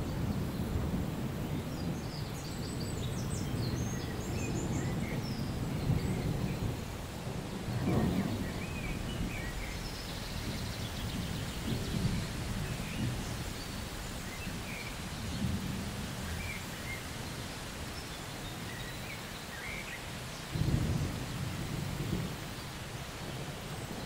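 Outdoor ambience of low rumbling, with louder swells at about 8 and 12 seconds and a sudden one near 20 seconds in, and faint high chirps scattered over it.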